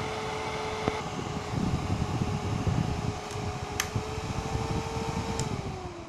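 Small 12 V DC cooling fans of a homemade Peltier-module air cooler running with a steady hum. A few sharp clicks sound, and about five seconds in a click comes as the fan is switched off: its tone falls as it spins down.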